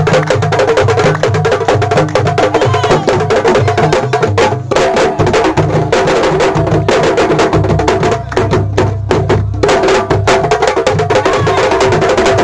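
Fast, dense drumming: many quick sharp strokes over deeper drum beats, played as a driving dance rhythm with no break.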